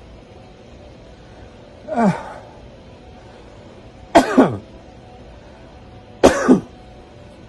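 A man coughing deliberately three times, about two seconds apart, each cough falling in pitch. The second and third are sharper and louder, each in two quick pushes. These are forced 'effective' coughs, done on hands and knees with elbows dropped and head down, to move secretions out of the lower lungs.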